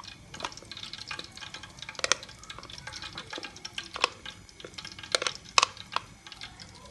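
A spoon scraping thick, wet ground-lentil batter (chana and urad dal) out of a blender jar: irregular clinks and taps of the spoon on the jar, with soft wet sounds as the paste drops into the bowl.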